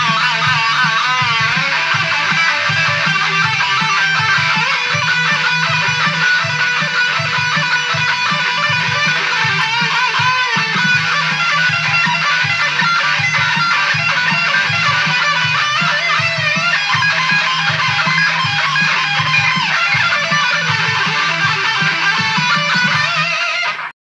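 Electric guitar jam in E: a lead line with wavering, bent notes over a steady low bass beat. The music stops suddenly near the end.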